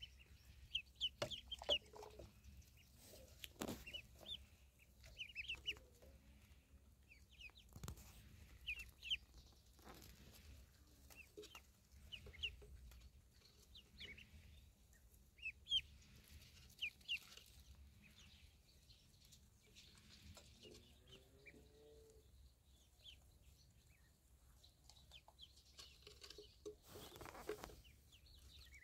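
Ducklings peeping: many short, high chirps in small clusters, with a few soft knocks and a lower sliding call about three-quarters of the way through.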